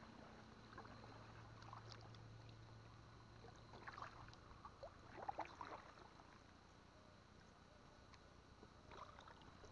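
Near silence: faint open-air ambience on the river, with a low steady hum for the first few seconds and a few faint short chirps around the middle.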